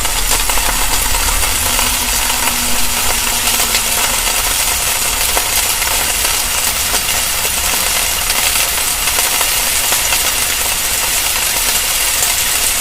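Grilled sandwich sizzling on a hot surface: a loud, steady, dense crackle.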